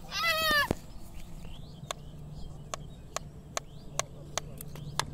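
A toddler's high-pitched squealing cry, falling in pitch, right at the start, then a series of sharp ticks, about two or three a second, over a low steady hum.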